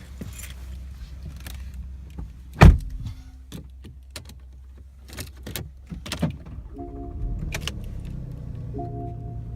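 Inside a car: a low rumble with scattered clicks and one sharp thump, like a door or latch, then an electronic warning chime repeating about every two seconds.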